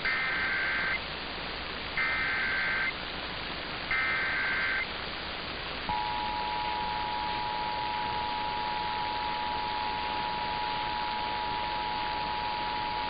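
Emergency Alert System SAME header: three one-second bursts of warbling digital data tones, a second apart. About six seconds in the steady two-tone EAS attention signal starts and holds, over a constant background hiss, marking the start of a required monthly EAS test.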